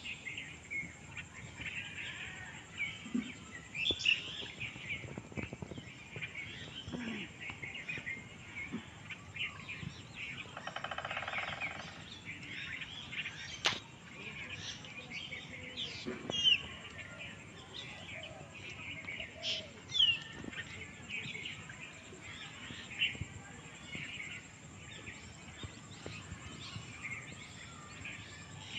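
Songbirds chirping and calling over and over, with short sharp chirps and quick rising and falling notes, over a thin steady high whine. About ten seconds in, a pitched call lasts a second and a half, and a sharp click follows a couple of seconds later.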